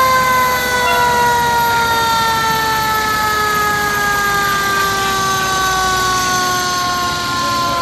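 Fire truck's mechanical siren winding down, one loud tone sliding slowly and steadily lower in pitch.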